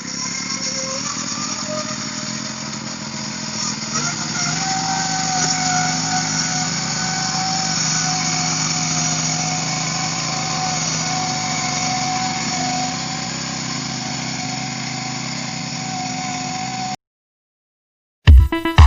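Small engine of a motorised mud-buggy carrier running steadily, picking up a little about four seconds in, then cutting off abruptly near the end.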